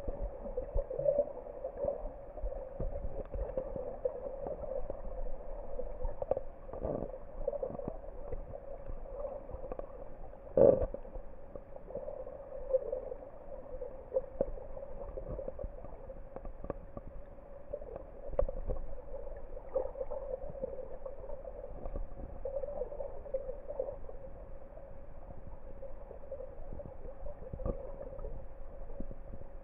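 Underwater ambience picked up by a camera submerged in the sea: a steady muffled wash with a droning band in the middle range, broken by scattered knocks, the loudest about ten seconds in.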